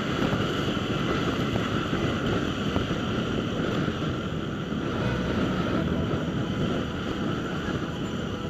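Trail bike engine running while riding over rough rock, mixed with heavy wind noise on the microphone.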